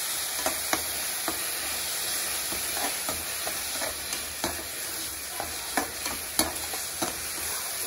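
Chopped onions, green chillies, garlic and ginger sizzling in ghee in a metal kadhai on medium heat. A metal slotted spoon stirring them scrapes and clicks against the pan every so often.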